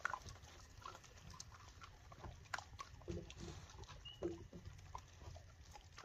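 Coyote chewing and crunching a barbecued rib bone: faint, irregular crunches and clicks.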